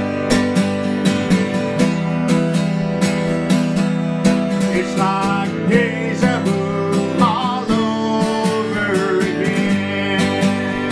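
Acoustic guitar strummed in a steady rhythm. A man's singing voice comes in over it about four seconds in and carries a melody for several seconds.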